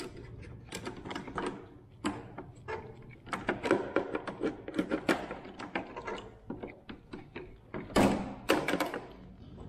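Pliers working a metal safety clip off a racing kart's brake master cylinder linkage: a string of irregular small metal clicks and clinks, with a louder rattle about eight seconds in.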